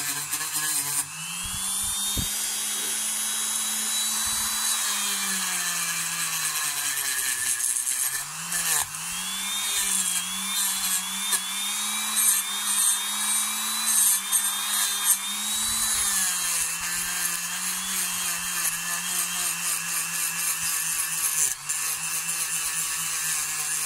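Dremel rotary tool running steadily, its small wheel polishing a die-cast metal model car body: a motor whine with a hiss of the wheel on the metal. The pitch dips and recovers about eight seconds in.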